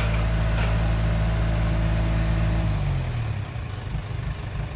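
Heavy diesel engine running steadily, then dropping in pitch about three seconds in and settling to a lower, rougher idle.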